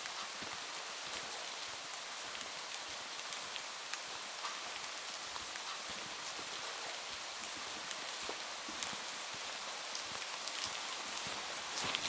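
Steady rain falling in a forest: an even hiss with scattered sharp ticks of single drops.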